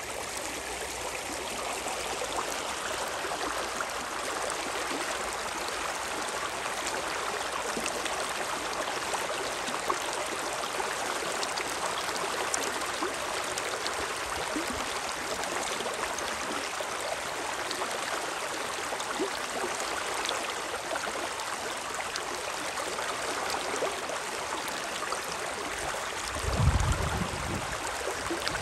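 The Spree river's water rushing in a steady, even flow. Near the end there is a brief low rumble.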